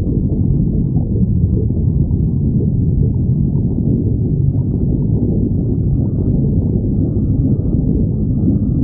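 Human stomach growling: a continuous deep, muffled rumbling that goes on without a break.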